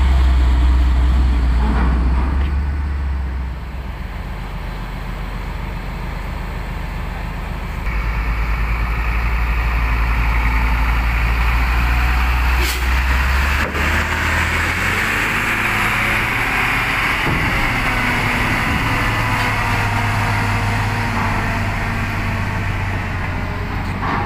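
Diesel engines of heavily laden trucks running as they drive up onto a ferry's loading ramp: a steady low drone that shifts pitch a couple of times, with a brighter noisy hiss joining about a third of the way in and a couple of sharp clicks about halfway.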